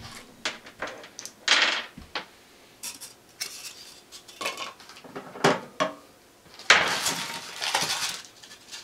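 Objects being handled in a cardboard box packed with styrofoam: a scattering of short light clinks and knocks, then a longer rustle of plastic and styrofoam near the end as a bagged power cord is lifted out.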